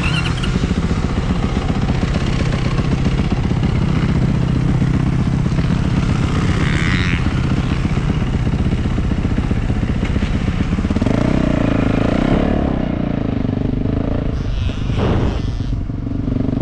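Motocross bike engine running at low speed, heard from the rider's helmet, its pitch rising and then falling about eleven to twelve seconds in as the throttle opens and closes.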